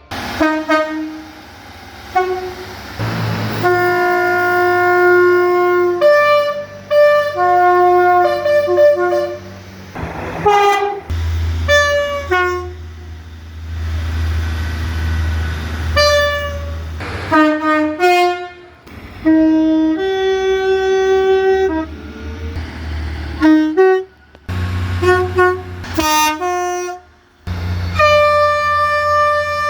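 A rapid succession of British train horns, many alternating between a high and a low note, some held for a second or two and some sounded in short blasts, cutting abruptly from one horn to the next. A low rumble lies under several of them.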